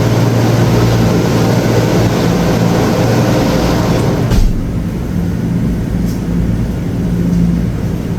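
Loud steady rumbling noise with a low hum, which cuts off abruptly with a knock about four and a half seconds in, leaving a fainter hum.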